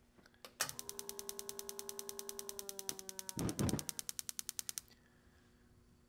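Direct spark ignition of a gas furnace: the spark electrode snaps in a rapid, even train of clicks, several a second, and the burners' gas lights with a short low whoosh about three and a half seconds in. The sparking stops about a second later, once the flame rod proves the flame.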